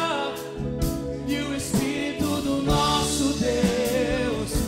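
Live Christian worship music: a male worship leader's voice over keyboard and electric guitar, a sung note falling away at the start and a wavering held note near the end, with a faint beat about once a second.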